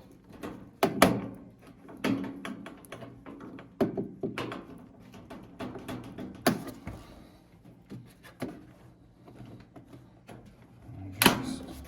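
Plastic parts of a countertop nugget ice maker being handled and worked loose during disassembly: irregular clicks and knocks, with sharper thunks about a second in, midway and near the end.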